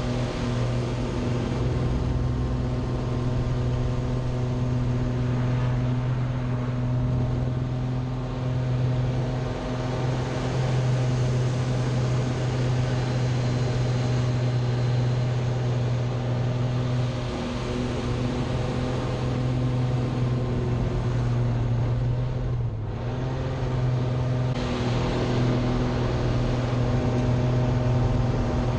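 Aerobatic plane's engine running steadily, heard from inside the cockpit as a loud, constant drone with wind noise, its note wavering slightly through the manoeuvres and dipping briefly about three-quarters of the way through.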